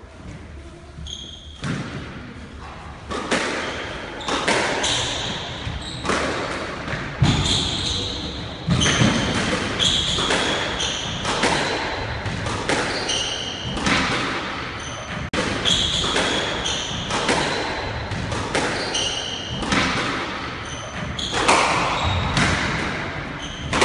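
A squash rally: the ball is struck by rackets and smacks off the court walls over and over, about once a second, each hit echoing round the court. Short high squeaks of shoes on the wooden floor come between the strokes.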